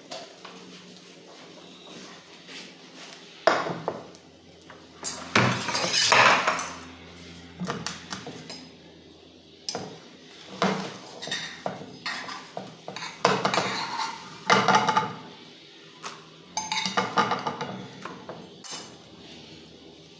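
Metal utensil clattering and scraping against a big metal pan in bursts, as a pancake is pried loose from the dry pan and flipped over.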